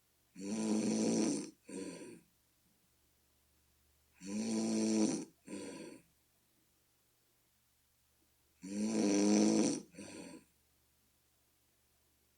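A person snoring, a snore likened to a bullfrog's call. Three snores come about four seconds apart, each a long one followed at once by a short one.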